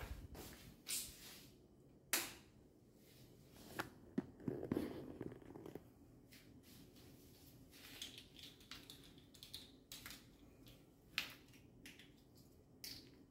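Faint handling noises: scattered light clicks and knocks, with a sharper knock about two seconds in and a cluster of knocks around four to five seconds.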